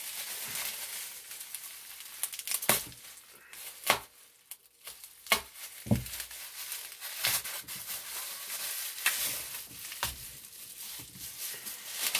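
Plastic bubble wrap being handled, cut and peeled off a small item: steady crinkling and rustling, broken by several sharp snaps and crackles.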